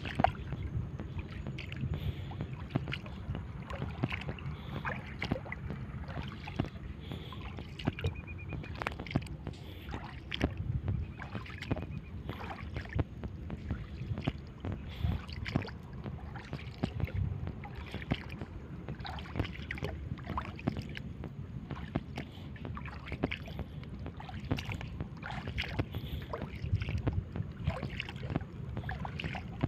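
Shallow seawater sloshing and splashing, with many small irregular clicks and knocks over a steady low rumble.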